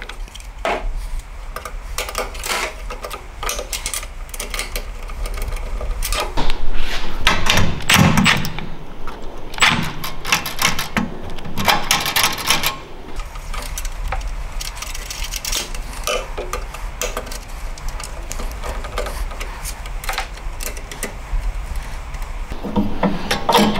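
Hand-tool work on a small engine's air cleaner: plastic cover and parts clattering, a cordless ratchet with a 10mm socket running on the bolts, and clicks from a screwdriver and wrench, in an irregular run of clicks and knocks.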